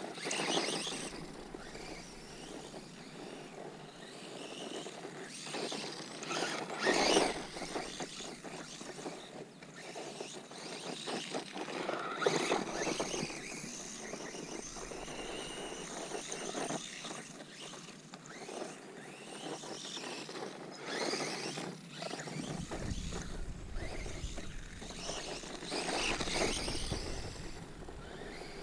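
ZD Racing Rocket 1/16 scale RC desert truck being driven on its brushless motor, with several louder surges as it is pushed hard and a low rumble near the end.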